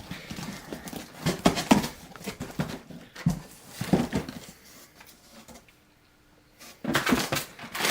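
A shipping box being opened and unpacked: cardboard and packing material rustling and knocking, with a few short squeaks, going quiet for about a second and a half near the end.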